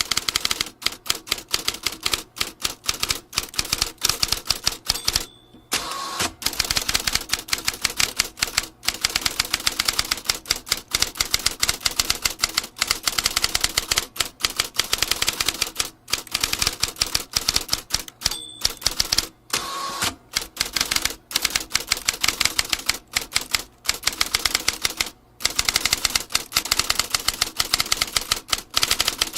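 Vintage typewriter being typed on quickly: a fast, steady run of key strikes, broken by a few short pauses.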